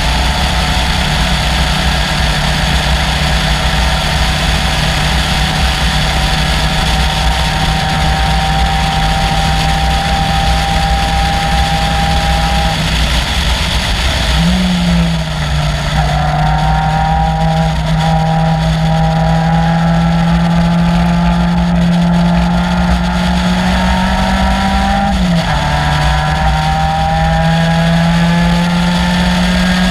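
Caterham Seven's 2.3-litre four-cylinder Ford Duratec engine running hard at racing speed. The note holds steady for the first half, changes gear with a quick rise and fall about halfway, then climbs steadily in pitch for about ten seconds before dropping at an upshift and climbing again.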